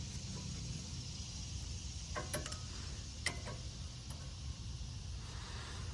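A few short metallic clicks and taps from a brake pad being slid into the caliper bracket's new retaining clips. There is a small cluster about two seconds in, another click a second later and a faint one after that, over a steady low hum.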